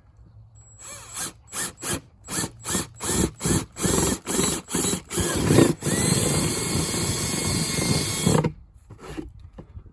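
Electric drill boring a hole through the plastic of a cooler: a quick series of short bursts as the trigger is pulsed, then held for a steady run of about two and a half seconds before it stops.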